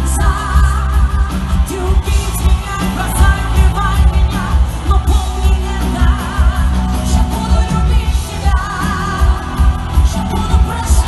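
Live pop concert: a female singer sings into a microphone with a wavering vibrato, in phrases, over a band with a heavy bass, heard through the hall's PA.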